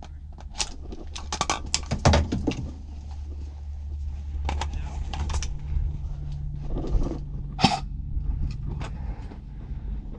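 Scattered sharp clicks and cracks, some in quick clusters, over a steady low rumble.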